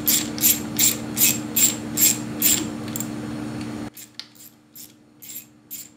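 Ratcheting screwdriver clicking in steady strokes, about two or three clicks a second, as it tightens down the mounting screw of a mill's tool-release switch. After about four seconds a steady background hum drops away and the clicks become fainter and sparser.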